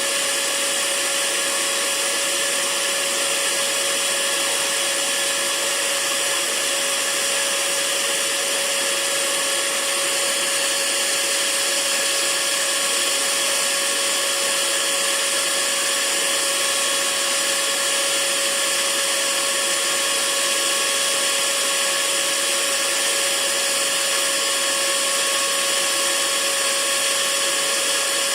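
Hair dryer running steadily, a continuous airy hiss with a steady motor whine in it.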